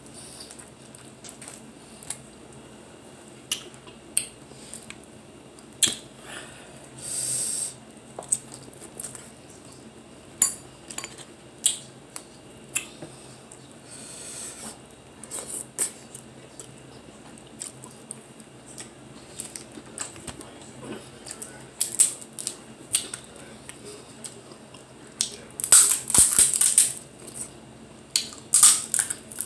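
Crab legs being cracked and their shells picked apart by hand, with scattered snaps and clicks of shell, eating sounds, and a few longer crackles, the loudest near the end.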